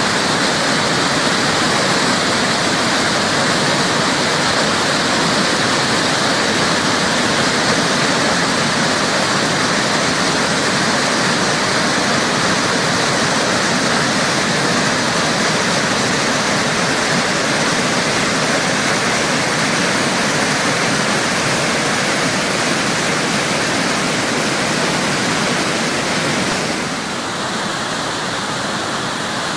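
Barron Falls in full flood: a huge volume of muddy floodwater plunging over the falls, making a loud, steady rushing. It eases slightly near the end.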